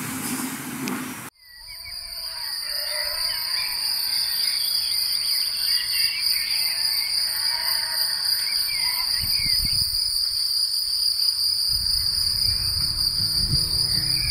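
Crickets chirping in a steady, high, pulsing chorus, with scattered bird chirps below it. A louder noise cuts off suddenly about a second in, and soft low music comes in near the end.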